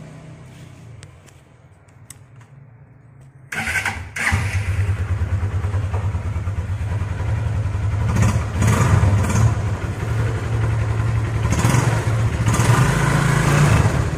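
Freshly rebuilt Honda Megapro single-cylinder four-stroke motorcycle engine starting about three and a half seconds in, catching within a second, then running and being revved up several times. This is its first test run after the clutch-shaft bearing was replaced.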